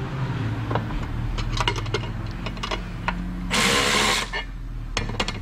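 Cordless electric ratchet with a 13 mm socket running in a short burst about three and a half seconds in, tightening a nut on a side-step bracket bolt. Light metallic clicks of the socket and hardware come before and after, over a steady low hum.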